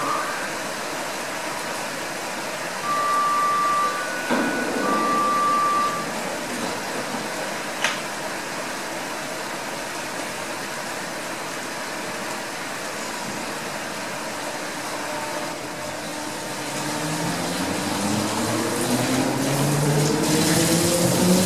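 Berlin S-Bahn class 485 electric train idling at the platform with a steady hum, over which two long beeps sound about three and five seconds in, and a sharp click near eight seconds. From about sixteen seconds the train pulls away, its motor whine rising in pitch and growing louder as it picks up speed.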